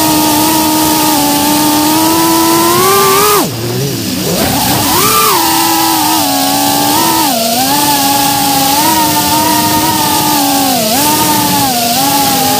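Three-inch FPV quadcopter's brushless motors and propellers whining in flight, the pitch rising and falling with the throttle. A little over three seconds in the pitch drops sharply for a moment and then climbs back.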